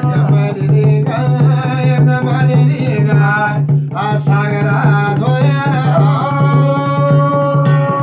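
Garhwali jagar music: a man singing a wavering devotional chant over quick strokes on a small laced hand drum, with a steady low drone underneath. About six seconds in the voice settles onto a long held note.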